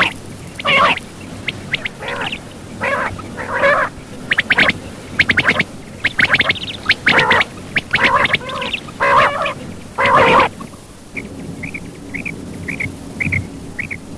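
Recorded common quail calls used as a hunting lure. Loud, harsh call bursts repeat irregularly for about ten seconds, then give way to a quieter, even series of short high notes, about three a second.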